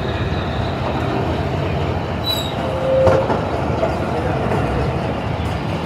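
Passenger train rolling slowly through a station yard, heard from on board a carriage just behind the diesel locomotive: a steady rumble of wheels on rails, with a short squeak and a knock about three seconds in.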